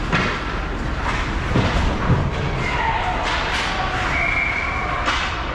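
Ice hockey play close to the net: skate blades scraping and carving on the ice, with sharp clacks and knocks of sticks and puck several times over the steady background of a large rink.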